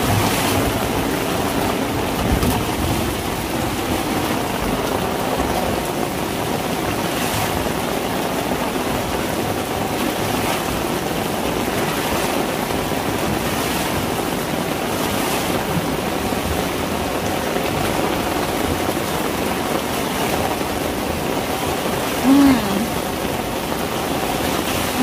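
Pouring rain and water rushing across a flooded tiled rooftop, a steady rushing noise, with water splashed around by a broom.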